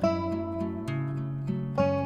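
Background music led by guitar, with a chord struck at the start and another a little before the end.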